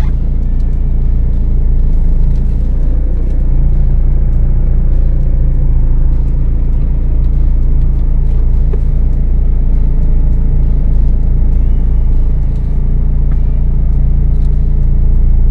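Renault Duster engine running at idle, heard from inside the cabin as a steady low rumble, while the car creeps slowly in reverse on the clutch alone with no accelerator.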